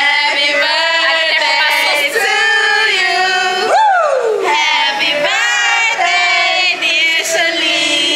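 Several voices singing loudly together without a break, with a long falling cry that drops in pitch about four seconds in.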